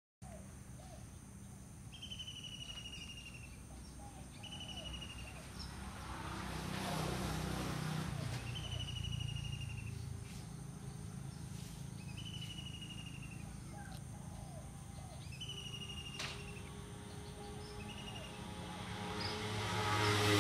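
Outdoor ambience: a bird repeats a short, falling whistled call every couple of seconds over a steady low hum, and a broad swell of noise rises and fades a few seconds in.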